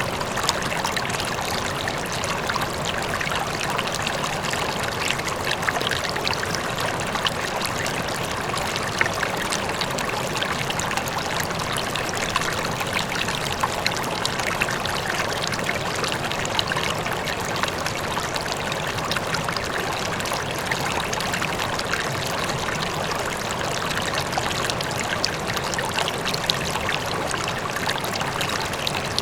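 River flowing steadily, with small splashes and trickles over an even rush of water, and a faint waterfall mixed in the background.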